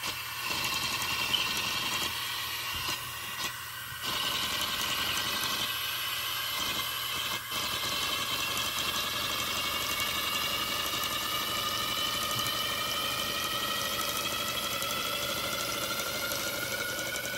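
Paper model boxer-twin engine running on air from a balloon with its flywheel removed: a steady airy whine in several pitches over a hiss, its pitch creeping up slowly near the end. Without the flywheel it runs much less smoothly than with it.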